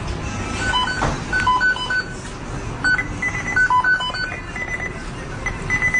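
A series of short electronic beeps, some pitched higher than others, coming irregularly several times a second over a steady hiss.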